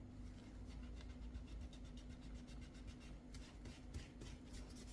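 Faint, quick scrubbing strokes on a plastic computer mouse's rubbery shell, over a low steady hum.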